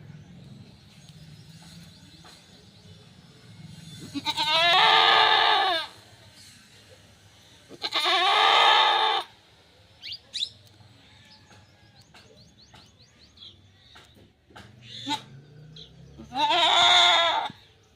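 Goat bleating: three long, loud calls of about a second and a half each, two close together in the first half and one near the end.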